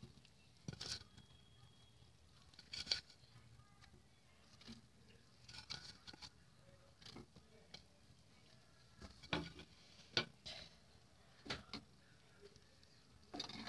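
Faint, scattered soft clicks and plops from a pan of simmering pea gravy as fried cauliflower kofta balls are put into it, about a dozen short sounds spread irregularly.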